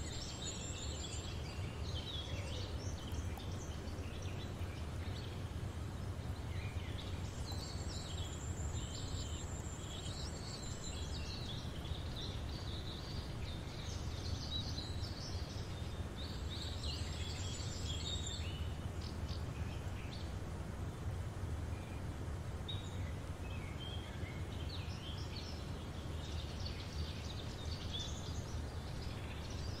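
Outdoor ambience of birds chirping and calling, with several short high trills, over a steady low background rumble.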